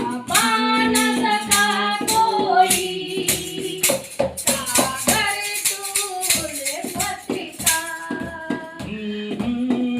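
A Hindi Christian devotional song: a voice sings a melody over a steady tambourine beat.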